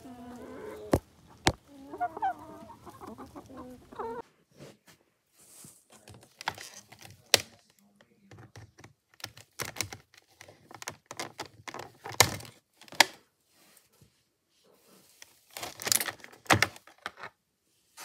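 A hen clucking for about four seconds. Then scissors snip the ties holding a plastic toy figure in its cardboard-and-plastic box, with sharp clicks and rustling packaging.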